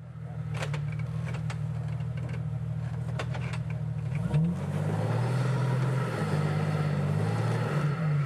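Jeep engine running under load, its revs rising and falling several times as the Jeep sits hung up on its rear differential on a rock climb, with a few short sharp knocks.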